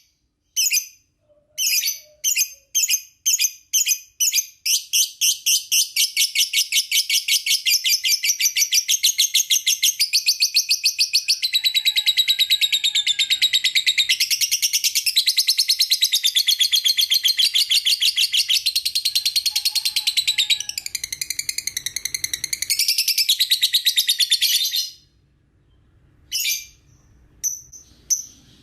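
Lovebird singing a long, rapid chattering trill. Separate high chirps quicken within the first few seconds into one unbroken trill that runs for about twenty seconds, then it stops abruptly and only a few single chirps follow.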